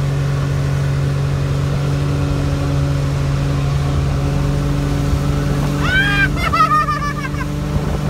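Motorboat engine running steadily at speed while towing a tube. About six seconds in, a person yells out, high and wavering, for a second or so.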